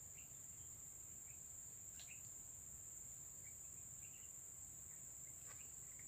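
Faint, steady high-pitched drone of insects, with a few soft bird chirps and a couple of faint ticks.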